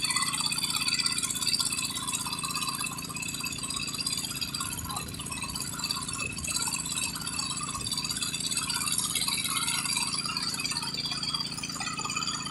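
The engine of a small water-well drilling rig running steadily, with a continuous metallic rattling from the rig's chains and drill pipe.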